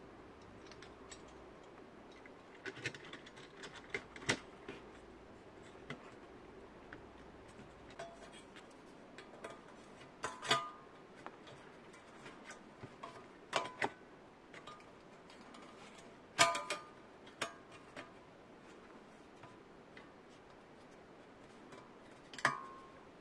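Irregular light clicks and knocks of small hard parts being handled, a few of them sharper, over a faint steady background hum.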